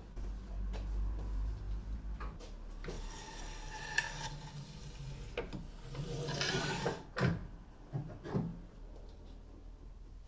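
Workshop handling sounds: scattered clicks and taps, then a scrape about six seconds in that ends in a thump, and two knocks, as a white PE 1000 plastic fence board is handled and set on the table saw top. A low hum stops about two seconds in.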